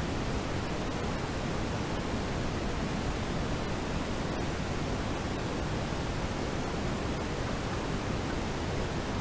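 Steady road and tyre noise of a car driving along at town speed, heard from inside the cabin as an even rushing hiss with no distinct events.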